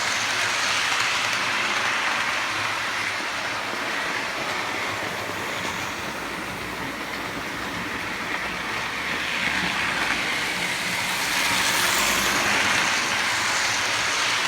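Hornby OO-gauge model train running round its track: a steady whir of the small electric motor and wheels rolling on the rails, fading a little in the middle and growing louder again near the end as it comes closer.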